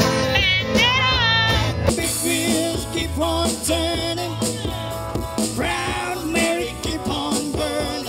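Live band music: singing over strummed acoustic guitars, with an abrupt change to another stretch of the performance about two seconds in.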